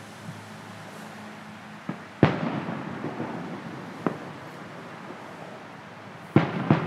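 Aerial fireworks shells bursting: a loud boom with an echoing tail about two seconds in, a sharper single crack about four seconds in, and two booms in quick succession near the end.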